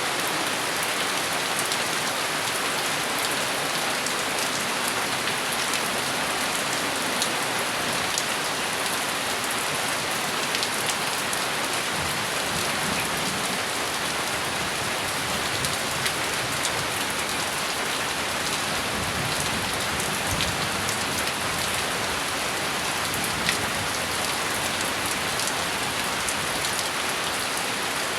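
Steady rain falling, an even hiss with many fine drop ticks on a surface.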